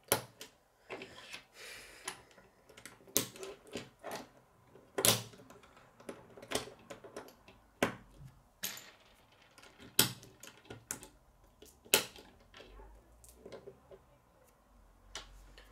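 Plastic K'nex rods and connectors clicking as they are snapped together and knocked against a wooden tabletop: irregular sharp clicks and clacks, about a dozen louder ones spread through.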